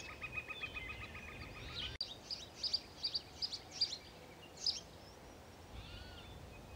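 Faint birdsong ambience: a fast, even trill for about the first two seconds, then, after an abrupt change, scattered short high chirps from small birds.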